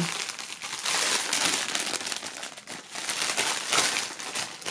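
Thin clear plastic bag crinkling and rustling as hands handle it to get a knitted balaclava out of it, in uneven rustles that swell and fade.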